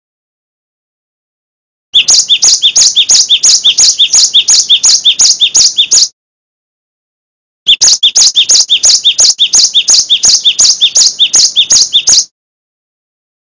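A cinereous tit (gelatik batu) sings two bursts of rapid, repeated sharp chirps, about four a second. The first burst starts about two seconds in, and the second follows after a short silence; each lasts about four seconds.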